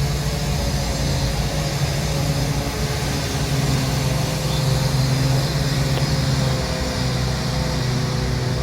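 A motor or engine running steadily, a continuous drone with a strong low hum and faint held tones above it.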